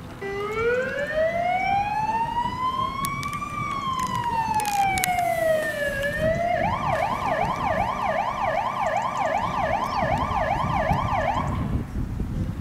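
Police van's electronic siren sounding: one slow wail that rises for about three seconds and falls again, then switches to a fast yelp of about three cycles a second, which cuts off near the end.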